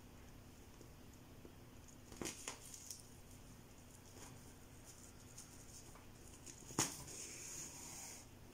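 Faint rustling and light clicks of hands sewing curly hair wefts onto a wig cap with needle and thread. There are a few soft taps about two seconds in, and a sharper click near seven seconds followed by a short hiss.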